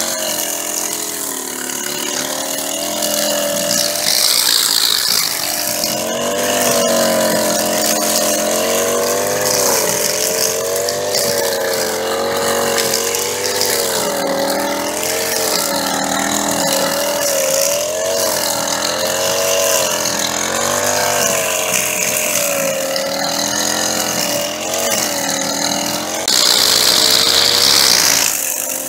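Engine of a nylon-line string trimmer running while cutting grass, its pitch wavering up and down over and over as the load changes. Near the end it gets louder, with a stronger high hiss.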